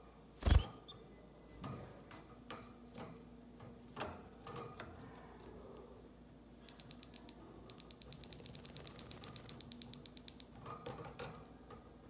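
Sounds of a canary moving about its wire cage: one loud knock, a few light taps, then a quick even run of dry clicks, about eleven a second, lasting nearly three seconds.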